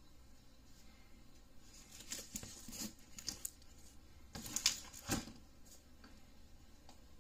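Paper rustling and scraping with light knocks, as the diorama base is handled and shifted on the sheet of paper under it. The sounds come in two short bursts, about two seconds in and again about four and a half seconds in.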